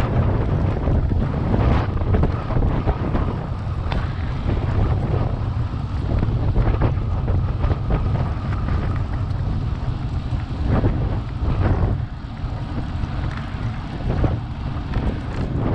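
Wind rushing over the microphone of a camera on a moving tandem bicycle, a steady low rumble, with a few brief knocks scattered through it.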